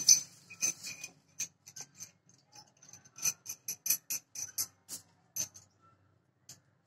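Hand tools clicking and clinking against a small metal plumbing fitting: quick, irregular ticks, dense for the first five seconds or so, then only a couple of isolated clicks near the end.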